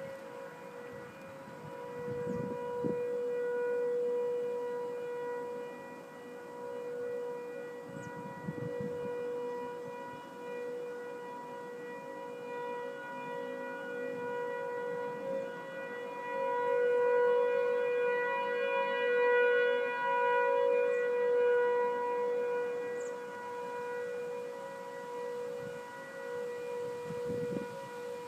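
Three Mile Island nuclear plant's outdoor warning siren sounding a steady single-pitch tone during a siren test, swelling louder and fading back repeatedly. Gusts of wind buffet the microphone a few times.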